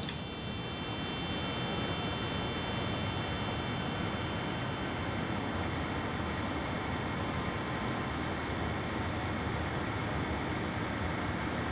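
HID headlight ballast starting up on a 13.5–14 V supply: a click at switch-on, then a steady, slight high-pitched buzzing hiss with several whining tones above it, easing off slowly. This is the ballast's normal start-up noise, which lasts only the first 15–20 seconds.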